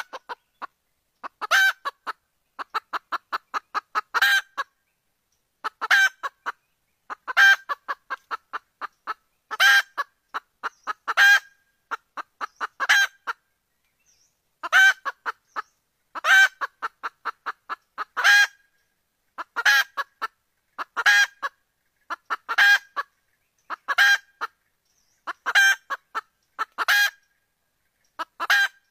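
Junglefowl hen calling over and over, each phrase a strong cackling note followed by a quick run of short clucks, repeating about every second and a half. This is the call the uploader presents as a female asking a male junglefowl to mate, used to lure males closer.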